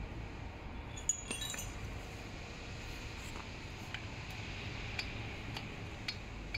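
Light metallic clicks and clinks from a steel T-handle hex key handled against the metal bolt and hinge parts of an electric scooter's folding mechanism. There is a small cluster about a second in, then single clicks scattered a second or so apart.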